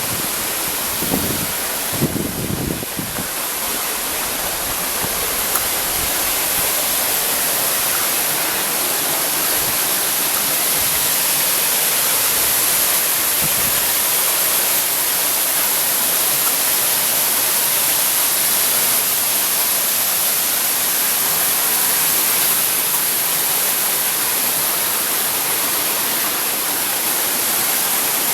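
Waterfall rushing steadily, with a few low bumps of wind on the microphone in the first three seconds.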